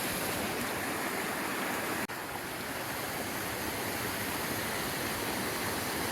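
Steady rush of a mountain creek's flowing water, with a brief dropout about two seconds in.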